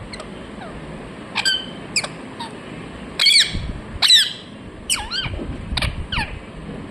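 Ringneck parakeet giving a string of short, high-pitched calls, loudest about three and four seconds in.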